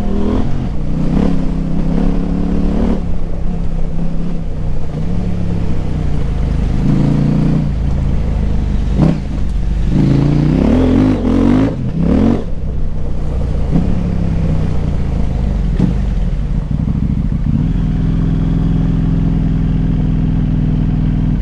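KTM 890 Adventure R's parallel-twin engine through a Wings slip-on exhaust with the dB killer removed, revving up through the gears several times, the pitch climbing and dropping back at each shift. Near the end it settles into a steady cruise.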